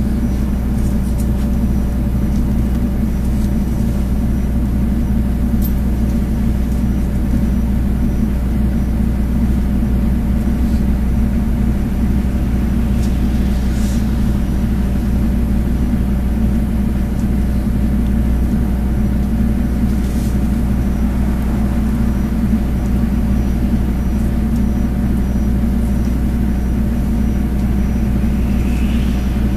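City bus engine and running gear, a steady low drone heard from inside the passenger cabin as the bus drives along.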